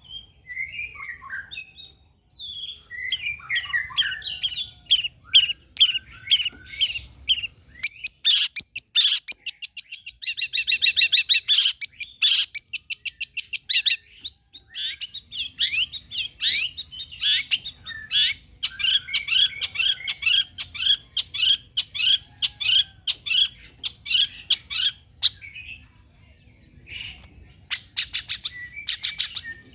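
Long-tailed shrike (cendet) singing a fast, varied chattering song of short high notes in quick runs, with a brief lull near the end. It is a lure song, played to make other cendets answer.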